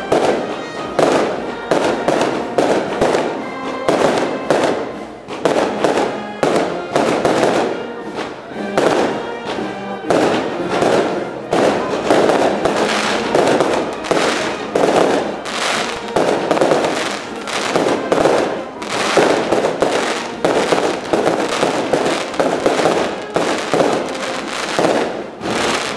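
Small aerial fireworks going off overhead in a rapid, continuous barrage of bangs and crackles.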